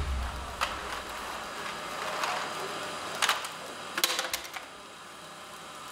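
A few light, irregular clicks and knocks over quiet room tone.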